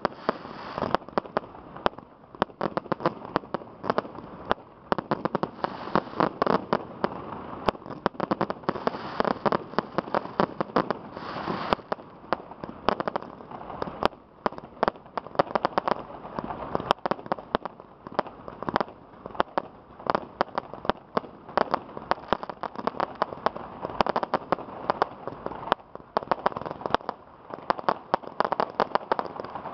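Aerial fireworks display: a continuous barrage of shell bursts and crackling, many sharp bangs and pops each second with no let-up.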